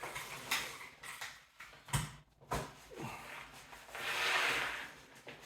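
Camping gear being handled: a few light knocks, then a rubbing, rustling sound of fabric or a stuff sack for about a second near the end.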